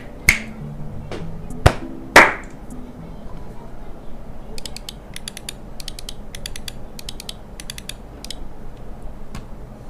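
Typing on an Aula Win68HE Max keyboard with linear magnetic hall-effect switches in a tray mount. A few loud single key strikes come in the first couple of seconds, then quicker bursts of typing clatter follow in the second half. The sound is a little hollow, especially around the spacebar. Background music plays under the first few seconds.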